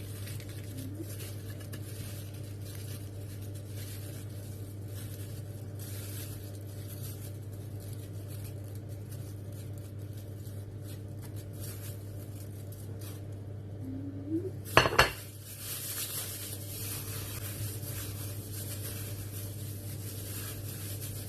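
Kitchen dishes and cutlery clinking and scraping during food preparation. About fifteen seconds in there is a loud clatter of two or three knocks. A steady low hum runs underneath.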